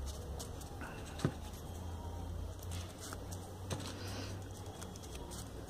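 Small folded paper units for a 3D origami model rustling and ticking as they are picked from a pile and pushed into the rows of the model, with a sharper click about a second in.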